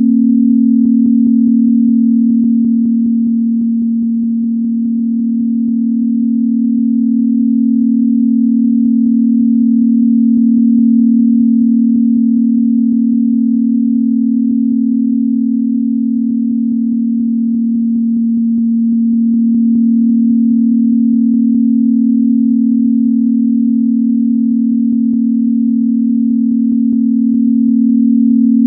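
Steady low electronic sine-wave tone held at one pitch, its loudness swelling and dipping slowly every several seconds.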